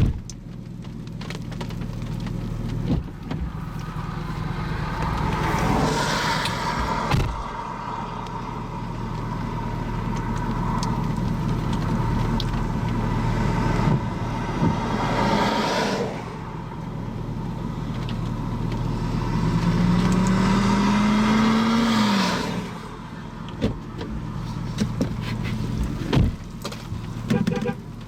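Car driving: steady engine and road noise, with a single rising tone near the end that drops away.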